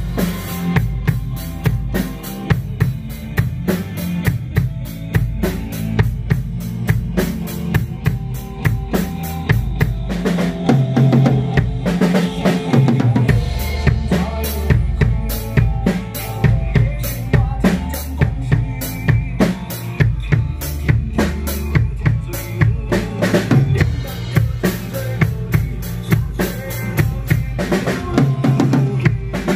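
Acoustic drum kit played in a steady pop-rock groove: kick drum, snare and cymbal hits over recorded backing music with a bass line and other instruments.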